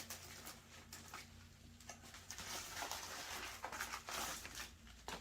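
Faint handling noise: soft rustles and light clicks of small diving-gear parts being picked up and moved, over a low steady hum.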